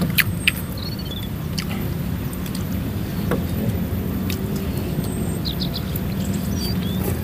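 A steady low rumble, with a few sharp clicks and several short high chirps over it.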